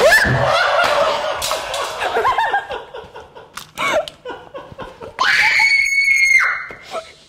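Children shrieking and laughing, with one long high-pitched scream about five seconds in.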